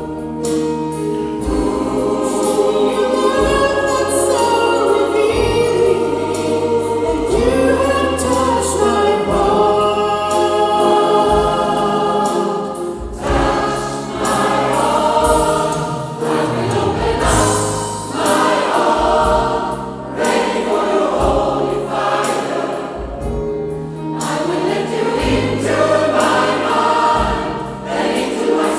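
Gospel choir singing with band accompaniment, sustained harmonised voices over a bass line and drums.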